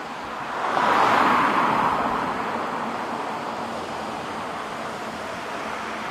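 A passing train's rushing rumble swells about a second in and then slowly dies away as the train recedes.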